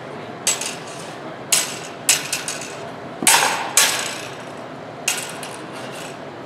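Steel rapier blades clashing in a fencing bout: a quick series of sharp metallic clinks, about seven, the loudest a little past the middle with a brief ring.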